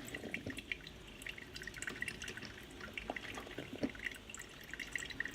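Smarter Coffee drip coffee maker brewing: hot water dripping and spitting into the carafe in small, irregular drips, faint and steady.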